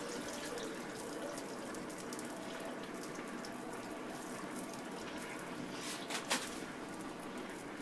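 Quench oil boiling and crackling around a red-hot wire-rope Damascus steel blade held down in it: the hardening quench from about 1540 °F. A steady bubbling hiss with fine crackles throughout and a couple of sharper pops about six seconds in.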